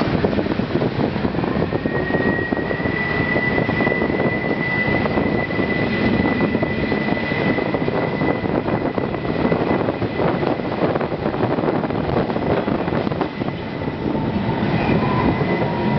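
Matterhorn Gotthard Bahn passenger train running noise heard from on board as it pulls out of a station, a steady rumble of wheels and motors. A thin, steady high whine comes in about two seconds in and holds nearly to the end.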